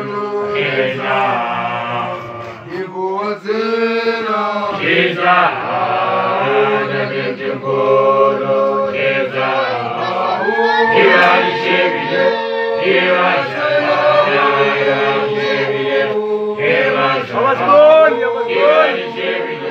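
A group of male voices singing a traditional Xhosa chant together in harmony, holding long notes.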